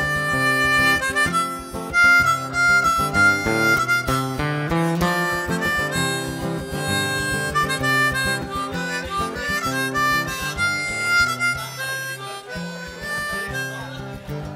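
Harmonica playing an instrumental solo of held and changing notes over strummed acoustic guitar accompaniment.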